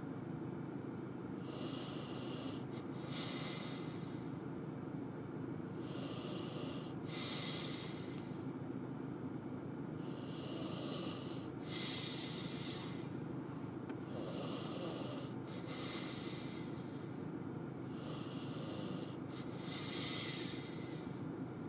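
A person breathing heavily close to the microphone: a hissy in-and-out breath about every four seconds, over a steady low hum.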